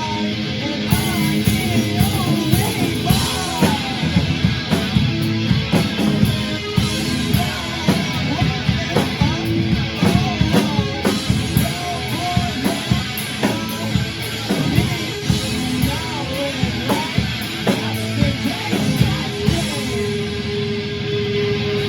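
Rock band playing a punk-style song: drum kit, electric guitar and a sung vocal line.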